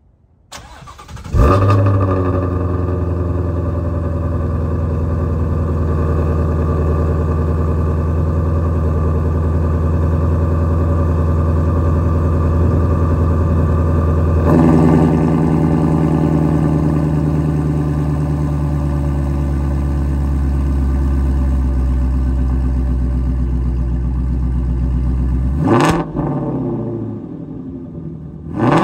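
Shelby GT350's 5.2-litre flat-plane-crank V8 cold-starting through its quad-tip exhaust. It cranks and catches with a loud flare about a second in, then runs at a steady high cold idle. The note steps down about halfway through and drops sharply in loudness near the end.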